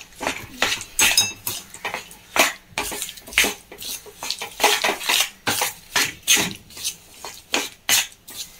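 Steel ladle scraping and clinking against a stainless steel pan while stirring lumps of jaggery as they melt. The strokes come irregularly, about two or three a second, with a brief metallic ring about a second in.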